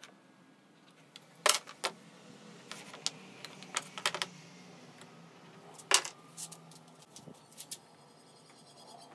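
A small metal square being set down and shifted on an MDF board while lines are pencilled along it: a handful of sharp clicks and taps, the loudest about one and a half and six seconds in, with faint scratching between.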